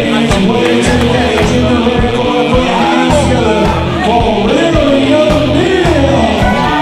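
Loud music with singing over a heavy beat, likely a fighter's walkout track played over a venue PA.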